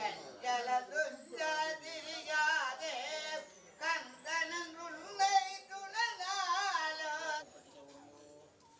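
A voice singing phrases with a wavering pitch, stopping a little over seven seconds in.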